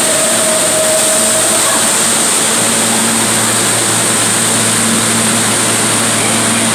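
Steady hum and rush of an R160 subway car standing at an underground platform, its ventilation and onboard equipment running, with no rise or fall in pitch.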